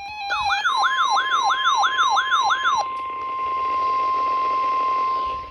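NOAA Weather Radio's steady 1050 Hz warning alarm tone, the signal that a warning message is about to be broadcast. For the first few seconds an electronic alert siren on the weather radio receiver sounds over it in rapid downward-sweeping whoops, about three a second, then stops and leaves the steady tone.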